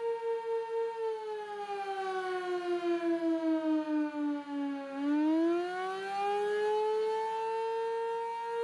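Outdoor civil-defense warning siren sounding during a test: a steady tone that pulses in loudness several times a second. About a second in, it glides slowly down in pitch for roughly four seconds, then rises back to the original pitch over about three seconds.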